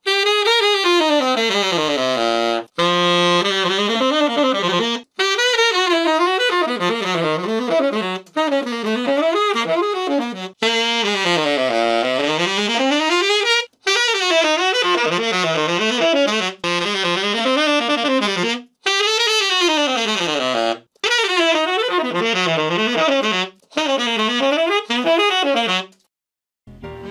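Solo tenor saxophone, fitted with a carbon-fiber reed, played in fast jazz runs that sweep up and down in short phrases with brief breath pauses between them. The playing stops about a second before the end.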